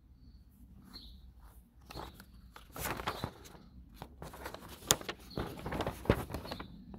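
Paper rustling and crackling as a folded A3 instruction sheet is opened out and handled, irregular crinkles for a few seconds with one sharp crackle near the end.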